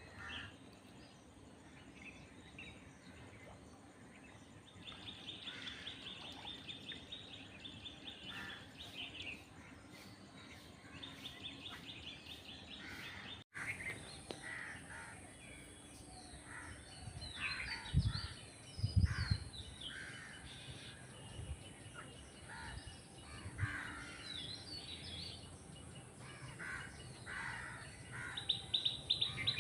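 Birds chirping and calling, with repeated rapid high trills and scattered short chirps. There are a few low thumps about two-thirds of the way through.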